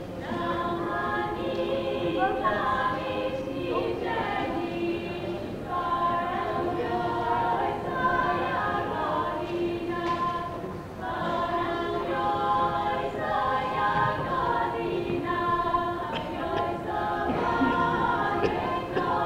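Women's voices singing a Slavic folk song unaccompanied, in harmony, with one part holding a steady low note beneath the moving melody; the phrase breaks briefly about halfway through before the singing resumes.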